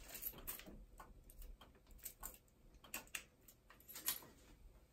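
Faint, irregular clicks from the switches and ignition key of a BMW K75RT motorcycle as they are handled, about a dozen small ticks spread unevenly.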